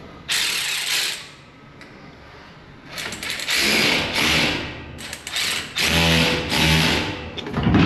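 Steel pig-barn gate being swung on its newly bolted stainless steel wheel, rolling and rattling across concrete in three or four runs of a second or two each, with a low thump near the end.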